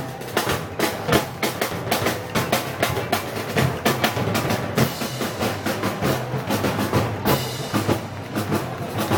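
Live festival band music carried by drums: snare and bass drum strokes keep a quick, steady beat over a low sustained bass part.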